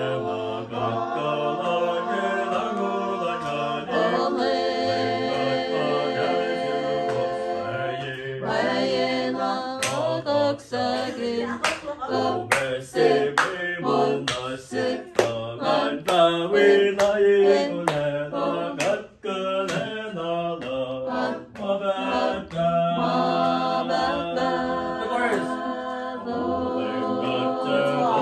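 A song sung by several voices in harmony, with no clear instruments under the voices. Through the middle stretch, sharp hits like claps or beats come roughly twice a second.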